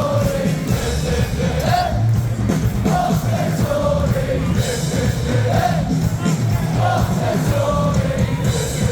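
Live band music with a singer, loud and bass-heavy, playing without a break.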